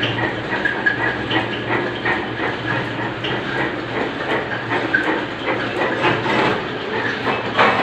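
Bandsaw machine running: a steady motor hum under an irregular rattle of clicks and ticks.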